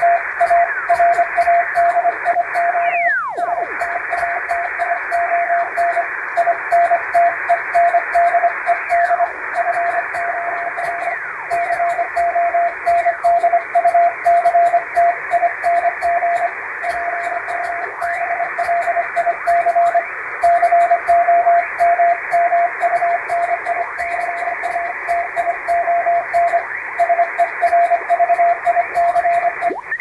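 Hand-sent Morse code: a steady tone keyed in dots and dashes on a straight key, spelling out English plain-language text, heard as if on a shortwave receiver. It sits under added band static and slow fading, and a whistle falls in pitch about three seconds in.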